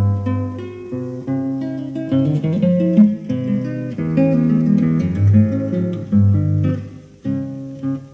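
Plucked guitar music playing through a Mission 761 two-way hi-fi loudspeaker whose failed tweeter has been replaced with one salvaged from KEF speakers. The music is being used to test the repair. It grows quieter near the end.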